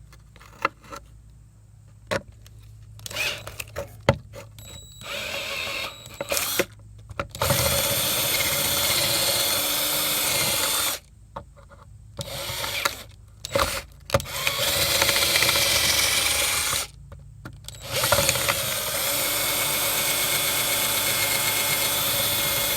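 Power drill with a 15/64 bit drilling out rivets from below, running in several bursts of a few seconds each with short stops between, its motor whine steady through each run. A few light clicks of handling come before the first run.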